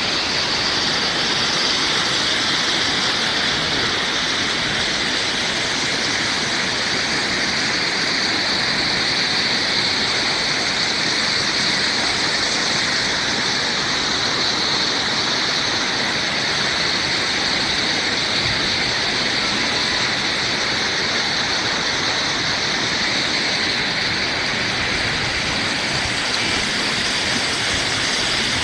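Waterfall: a steady, even rush of falling water with a bright hiss.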